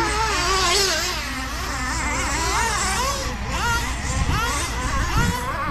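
Several two-wheel-drive nitro RC trucks' small two-stroke glow engines racing together, their overlapping high-pitched whines rising and falling as they rev and back off.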